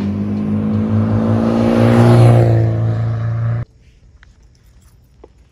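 Honda Fusion 250 scooter's single-cylinder engine running through an American Classic dual exhaust. The exhaust note swells to its loudest about two seconds in, then cuts off abruptly.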